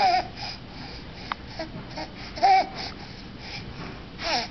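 Baby of about eleven months babbling in short, high-pitched squeals, three times: at the start, about two and a half seconds in, and near the end.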